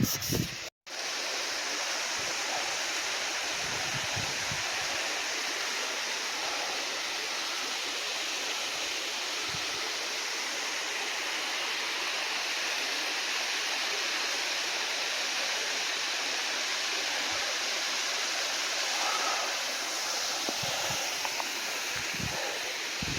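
Steady rush of Palisades Falls, an 80-foot waterfall, falling without letup; the sound drops out for an instant under a second in.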